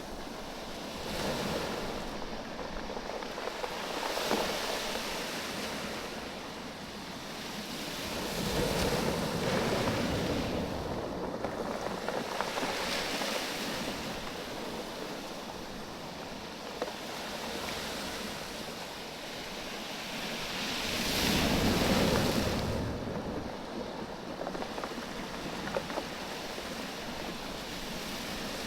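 Waves washing in and draining back over a beach of rounded oval stones, the stones knocking together in a rattling clatter as the water pulls back. The wash swells and fades in several surges, loudest about a third of the way in and again about three quarters through.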